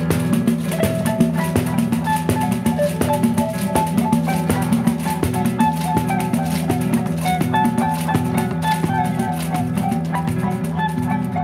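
Instrumental music: a nylon-string classical guitar and an electric guitar playing plucked lines together, over a steady patter of pandeiro strokes and jingles, with no singing.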